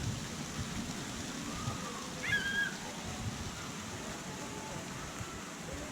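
Steady rush of running water, an even hiss throughout, with a faint short high call about two seconds in.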